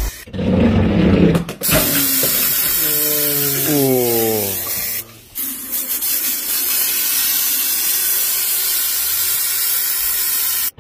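Pressurised carbonated soft drink hissing as it sprays out of punctures in plastic bottles. Around three to five seconds in, a falling whistle-like tone sounds, and from about five seconds on a steady hiss of a fine jet squirting from a punctured cola bottle.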